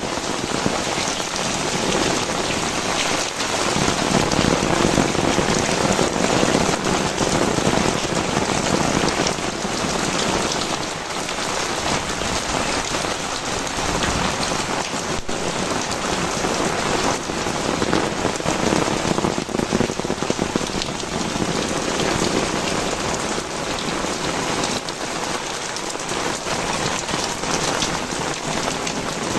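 Heavy rain pouring steadily, a dense patter of drops hitting the ground and surfaces, swelling a little at times.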